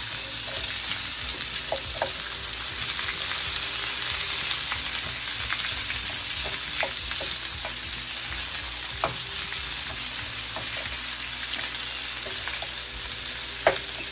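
Dried chiles, tomato and onion frying in oil in a pan over low heat: a steady sizzle with scattered small pops. A single sharp knock near the end.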